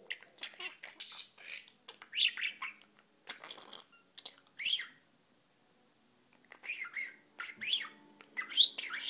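Budgerigar chattering: short high chirps and warbled bursts, a pause of about a second and a half past the middle, then a quicker run of chirps near the end.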